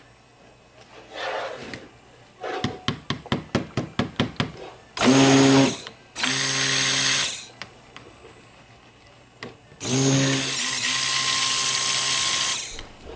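Handheld stick (immersion) blender pulsed in cold process soap batter, the standard way of mixing the batter toward trace. A quick run of clicks comes first, then three bursts of motor whine: about a second, about a second and a half, and a longer one of about three seconds near the end.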